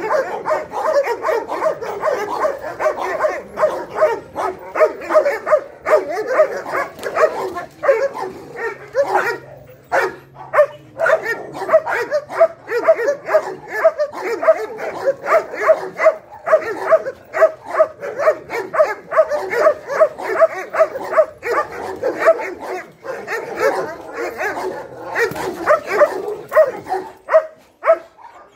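Dog barking continuously in quick, repeated barks, a few a second, pausing briefly about ten seconds in.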